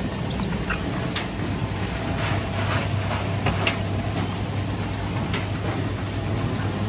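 Tangerine sorting line's roller conveyor running with a steady machine hum and rattle, with a few light knocks scattered through it.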